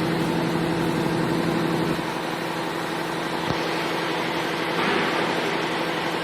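CO2 laser engraving machine running while it engraves, a steady mechanical hum with a buzzing tone, shifting slightly in level about two and five seconds in, with a single click about three and a half seconds in.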